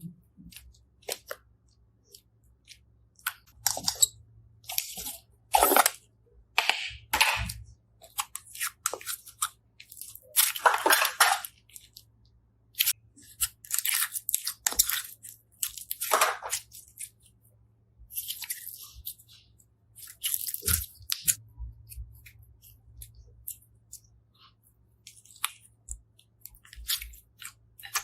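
Slime being pressed and squished by hand, making irregular crackling, crunchy bursts, some brief and some lasting about a second.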